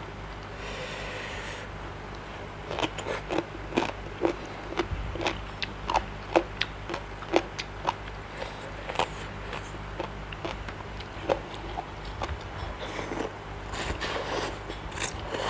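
Close-up eating sounds from a person chewing spicy seafood papaya salad: a run of short, sharp wet smacks and crunches, growing denser near the end.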